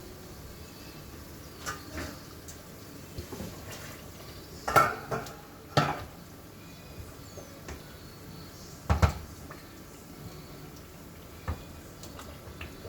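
Kitchen clatter of pots, dishes and cutlery being handled: a scatter of sharp clinks and knocks, the loudest about five and nine seconds in.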